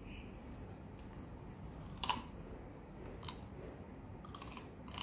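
A West Highland white terrier biting and chewing a piece of raw cucumber held out by hand: a few short, crisp crunches about a second apart, the last ones coming in a quick cluster near the end.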